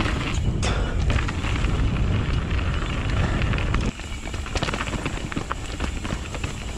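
Wind buffeting the microphone and tyres rumbling over dirt on a fast mountain-bike descent, with scattered clicks and rattles from the bike. The rumble eases about four seconds in.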